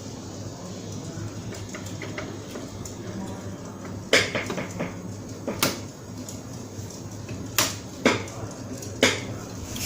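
Sharp clicks and knocks of plastic and metal parts being handled and fitted inside an opened HP ProLiant ML350 Gen9 server chassis, about five from around four seconds in, over a steady low background hum.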